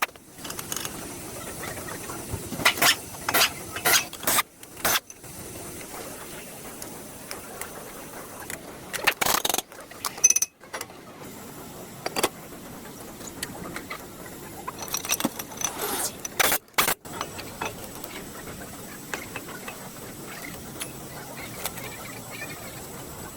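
Irregular sharp clicks and metallic knocks, like tools working on a car's wheel and brake parts, over a steady background hiss, with a few abrupt breaks.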